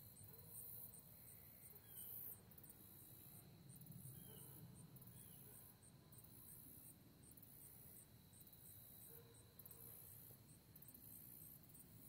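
Faint, high-pitched chorus of katydids and crickets, chirping in regular, evenly spaced pulses over a steady high whine.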